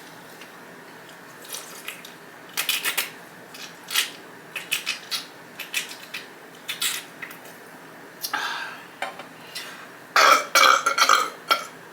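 Clicks and taps from handling a Sprite drink, then near the end a run of several short gulps as the Sprite is swallowed.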